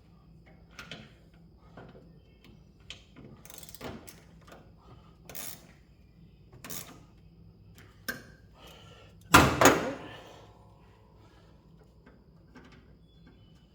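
Hand tools working on metal: scattered light clicks and taps, then a loud metallic clank about nine seconds in that rings briefly.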